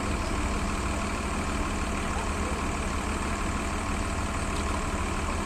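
Large bus diesel engine idling steadily, a constant low hum.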